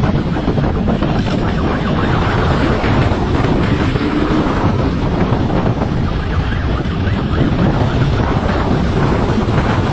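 Motorcycle riding at speed with heavy wind noise rushing over the microphone and the engine running underneath, steady throughout.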